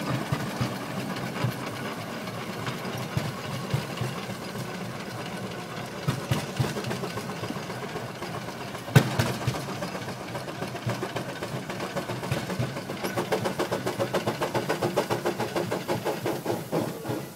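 Steam traction engine working under load as it climbs a steep dirt pile, its exhaust beating in a steady rhythm that stands out more strongly in the last few seconds, about five beats a second. A single sharp knock about halfway through.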